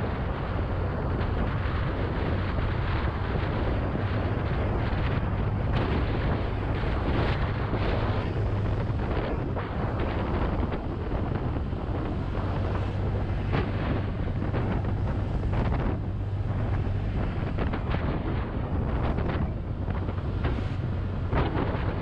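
Wind buffeting the microphone over the steady low drone of a Honda Click 125i scooter's single-cylinder engine, ridden at road speed, with frequent short gusts of wind noise.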